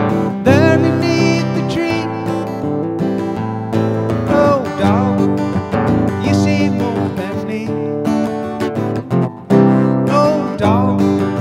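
Acoustic guitar strummed steadily in a country-style song, with a few short vocal phrases here and there.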